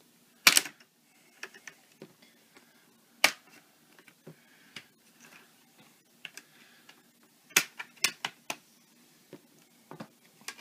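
Plastic laptop screen bezel being pried off its lid, its clips snapping loose in sharp clicks: one about half a second in, another near three seconds, and three in quick succession around eight seconds, with faint rubbing of plastic between.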